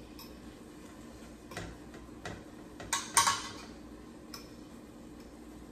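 A few scattered light clicks and taps as pieces of cut sausage are dropped by hand into a stainless steel pot, with a sharper double clack about three seconds in.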